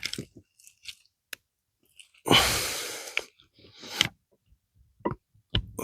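A loud exhale that fades over about a second, then a shorter breath a second later, with a few small sharp clicks of a tool working a tiny cotter pin out of a transmission.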